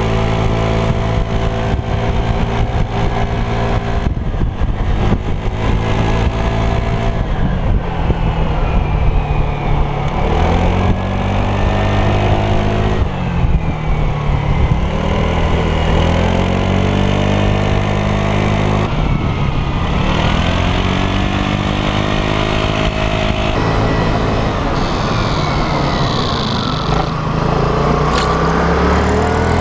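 Vespa LX 125 ie scooter's single-cylinder four-stroke engine running while riding, heard close from a camera mounted on the scooter. Its pitch holds steady, then falls and rises several times as the throttle is eased off and opened again.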